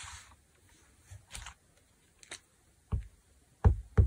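A brief rustle of fabric at the start and a couple of faint clicks, then near the end a rubber stamp tapped repeatedly on the work table: a quick run of sharp knocks, about three a second.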